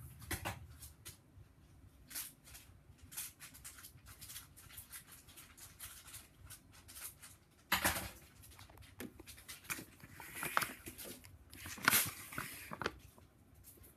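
Scissors snipping and a plastic sachet being handled, a string of light clicks and crinkles, with two louder handling knocks about eight and twelve seconds in.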